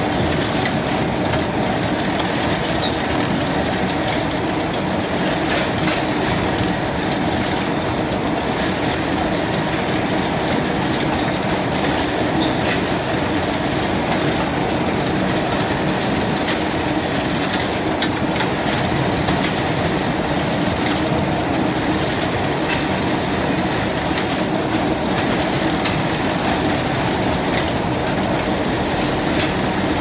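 Fischbein Dumpy MP100 bag-stitching machine and its carousel chain conveyor running steadily, with scattered clicks through the steady machine noise.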